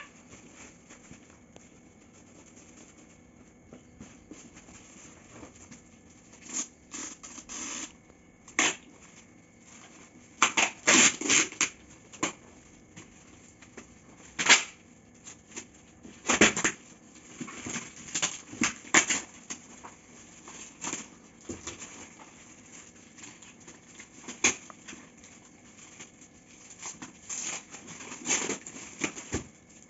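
Glossy gift-wrapping paper crackling, crumpling and tearing as it is pulled off a large box, in irregular bursts with short pauses between.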